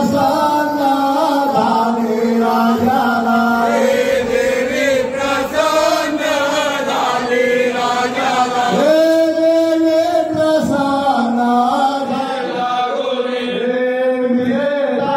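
Devotional song sung in a chanting style, with long held notes, as music for a men's group dance.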